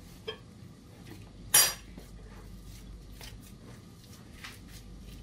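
Potato masher knocking against a glass dish as boiled potatoes are mashed. A few scattered clinks, one much louder about a second and a half in.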